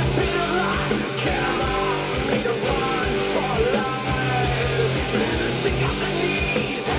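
Rock song with guitar, drums and vocals, played back through a small desktop studio monitor and picked up by a microphone.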